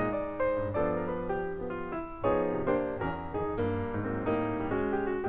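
Background piano music, a light tune of quickly changing notes.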